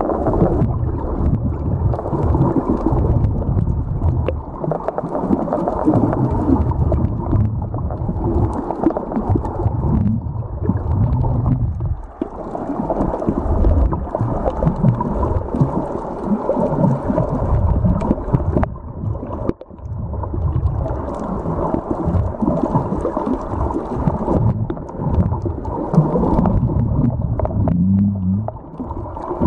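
Muffled underwater sound picked up by a submerged camera: a low, churning rumble of water moving around the camera, with gurgling. It dips briefly twice.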